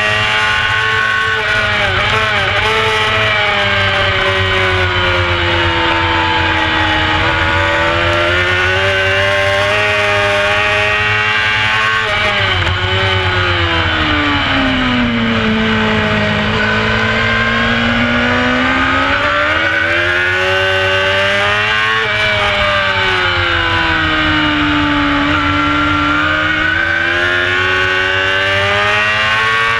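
Onboard sound of a carburetted Honda CBR600 F4 four-cylinder race bike running hard on track, its engine note sweeping down and up with the corners as the rider brakes, downshifts and drives out again. The revs drop lowest about halfway through and again near the end, then climb back.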